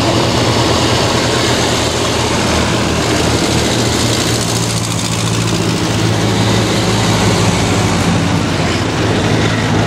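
Vintage tractor engines running steadily as the tractors drive past one after another, with a low, even engine note that grows stronger about halfway through as a grey Ferguson tractor passes close.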